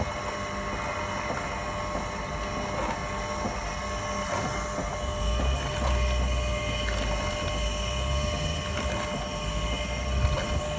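Meat grinder running as it grinds bar soap through its cutting plate: a steady mechanical hum and whine, with a heavier low rumble from about halfway through.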